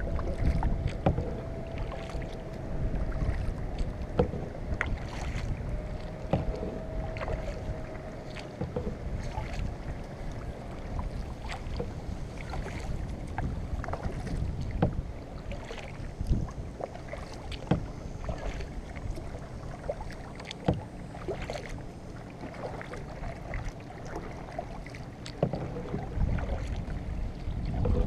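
Kayak paddle strokes dipping and splashing as the boat moves through flooded marsh grass, with scattered knocks and brushing from the paddle and hull and a low wind rumble on the microphone.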